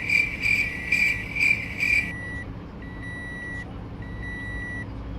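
Electronic beeping: a quick run of five chiming beeps in the first two seconds, then a single high tone beeping on and off at a steady pace, about once a second.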